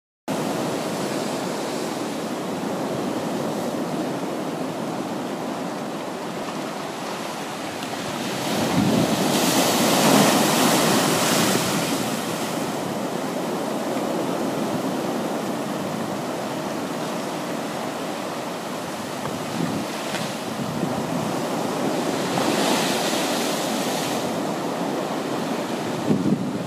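Sea waves breaking and washing over a flat rocky shore in a continuous surf, swelling louder as bigger breakers come in about nine seconds in and again around twenty-two seconds.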